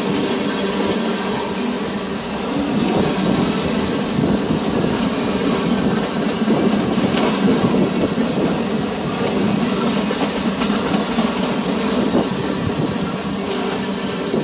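Freight train rolling past close by: a steady running noise of the cars on the rails, with occasional wheel clicks.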